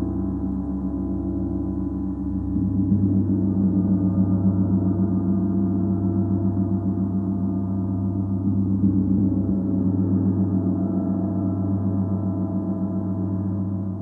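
A large Paiste gong played continuously with a soft felt mallet: a sustained low hum with a rapid, even wavering pulse. It swells louder about two and a half seconds in.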